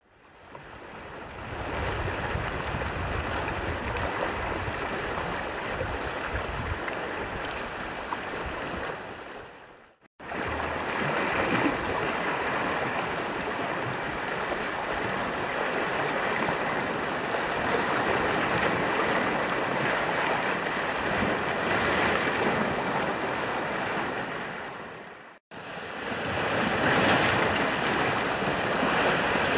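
Columbia River waves washing against the shore: a steady rushing noise. It cuts out briefly twice, about ten seconds in and again near twenty-five seconds.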